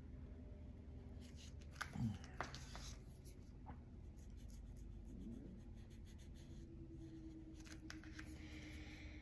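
Faint scratching of an alcohol ink marker's nib drawing a stem line on paper, with a few soft taps about two seconds in and again near the end, over a low room hum.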